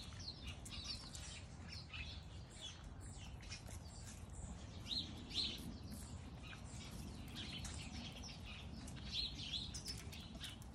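Small birds chirping over and over, with a few louder chirps about halfway through and again near the end, over faint clicking and crunching from puppies eating at their bowls.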